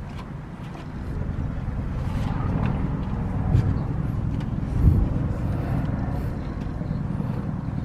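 A steady low vehicle-like rumble, with scattered clicks and clinks of metal parts and tools as a new idler pulley is fitted to the engine; one knock about five seconds in is the loudest.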